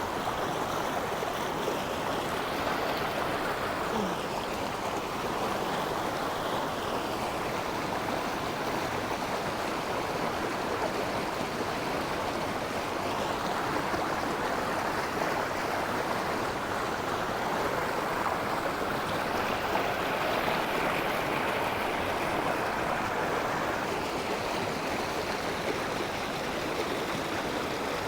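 A river of fast-flowing water, rushing steadily.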